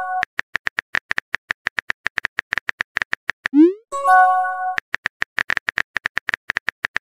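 Texting-app typing sound effect: rapid, uneven keyboard clicks. About three and a half seconds in, a rising swoop leads into a short chord-like chime as a message is sent. The typing clicks then resume.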